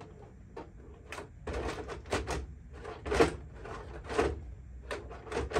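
Plastic body shell of an ARRMA Mojave 4S RC truck being handled and pulled off its chassis: a string of irregular plastic knocks and rattles.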